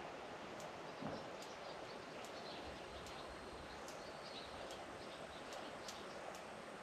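Faint rural outdoor ambience: small birds chirping now and then over a steady hiss, with a run of light, sharp ticks every half second or so and one soft low thump about a second in.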